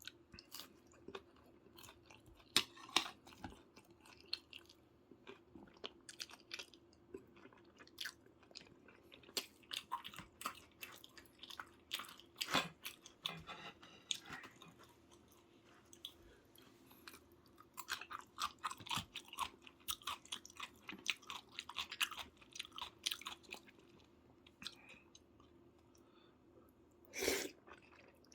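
A person chewing soy-braised chicken close to the microphone: irregular wet smacks and clicks of the mouth, with a louder short burst near the end.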